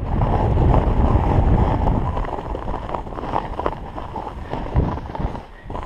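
Wind buffeting the body-mounted camera's microphone as a snowboard runs at speed over wind-crusted snow, the board scraping and chattering on the crust. The rush is heaviest in the first two seconds, eases off, and drops away briefly near the end.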